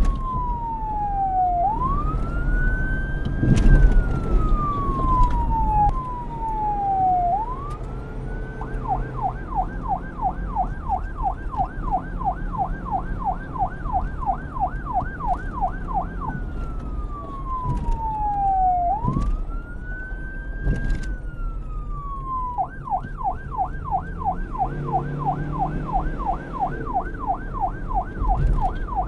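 Police car siren alternating between its two modes: slow wails that fall over about two seconds and sweep quickly back up, then a fast yelp of about three to four sweeps a second, then a wail and the yelp again. A low rumble runs underneath, and a loud thump comes about four seconds in.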